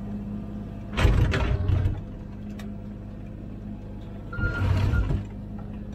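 Komatsu PC16 mini excavator's diesel engine running steadily, with two louder bursts, about a second in and again after four seconds, as the bucket digs into the soil and rubble in the trench.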